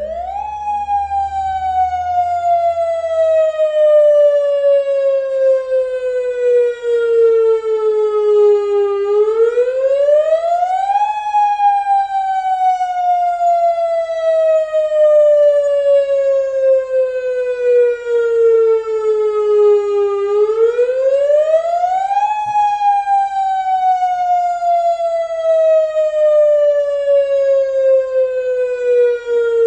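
Warning siren sounding a tsunami alert: one loud tone that slides slowly down in pitch for about nine seconds, then sweeps quickly back up. It does this twice, about nine and twenty seconds in, then falls again.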